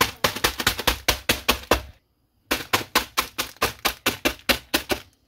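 A hand pounding a sealed packet of Maruchan instant ramen on a hard counter, crushing the dry noodle block inside. Rapid blows, about five or six a second, in two runs with a short pause about two seconds in.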